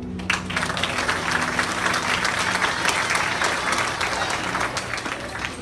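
Audience applauding, breaking out suddenly just after the start as a dense patter of many hands clapping.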